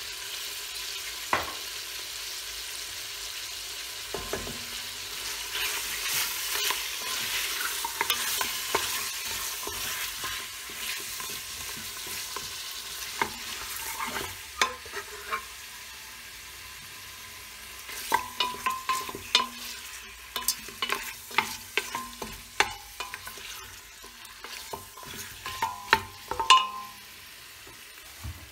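Bone-in meat sizzling as it sears in oil in a stainless steel pressure-cooker pot, with a utensil stirring and scraping it. The sizzle eases about halfway through, and in the second half the utensil repeatedly knocks and clinks against the steel pot, each knock ringing briefly.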